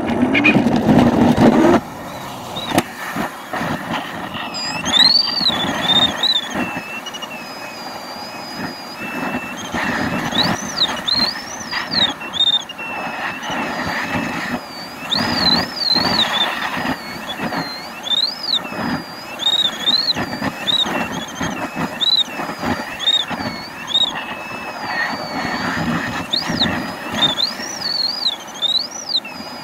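Glider launch: the main wheel rumbles over the ground for about the first two seconds, then air rushes past the canopy while the electronic variometer's tone glides up and down in pitch, following the glider's climb and sink.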